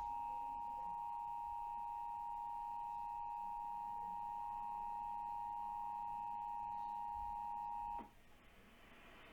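Emergency Alert System attention signal: two steady tones of 853 and 960 Hz sounded together, cutting off sharply about eight seconds in.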